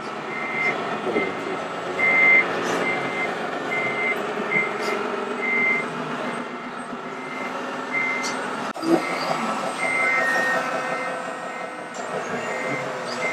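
Reversing beeper of RC model trucks' sound modules, beeping over and over at a steady pitch and uneven spacing. Underneath is the steady hum of the model trucks' engine sounds.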